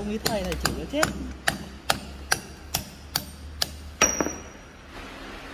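Hammer blows on steel, about two a second, forging the heated end of a steel shaft around a 10 mm square bar to shape a square hole. The last and loudest blow, about four seconds in, leaves a high metallic ring for most of a second, and then the hammering stops.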